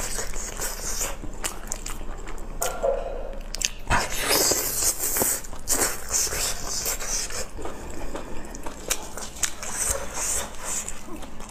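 Close-miked chewing and wet mouth sounds of a person eating chili-coated meat: many short smacks and sticky clicks.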